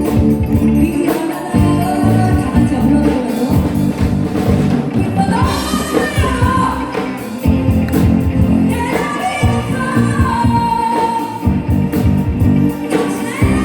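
Rock band playing live with a singer, over steady bass and drums.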